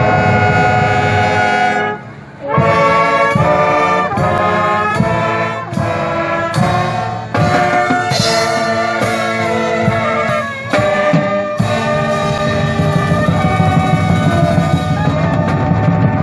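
Marching band brass section, trumpets and trombones, playing with drums: a held chord, a brief break about two seconds in, a run of short punched chords, then long sustained chords.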